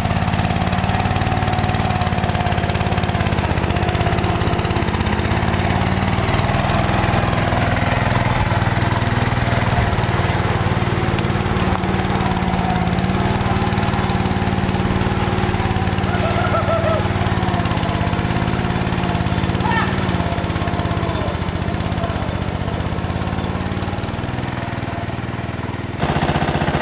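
MTD 990 riding mower's engine running steadily, its pitch rising and falling slightly.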